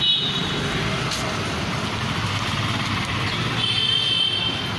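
City street traffic heard from a moving vehicle: a steady rumble of engines and tyres. A high, even vehicle horn beeps briefly at the start and again for most of a second about three and a half seconds in.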